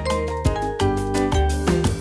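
Upbeat background music with a steady beat.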